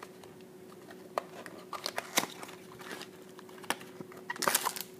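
Trading card packs and their wrappers being handled: crinkling packaging with scattered taps and clicks, and a short burst of crinkling near the end.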